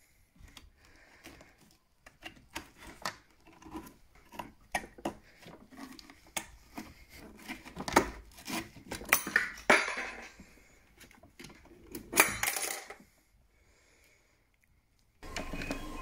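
Irregular small clicks, knocks and light metallic clatter of hands working the parts and connectors inside an Alpha Intec 2 gas boiler's opened casing during a service strip-down, busiest in the second half.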